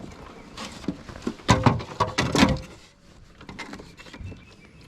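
A few knocks and clattering rattles of gear being handled, loudest between about one and a half and two and a half seconds in.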